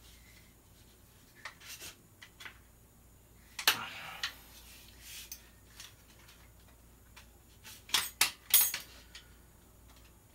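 Airsoft rifle handguards being worked into place: scattered clicks and clacks of hard parts knocking together, the loudest about four seconds in and a quick cluster of several near eight seconds.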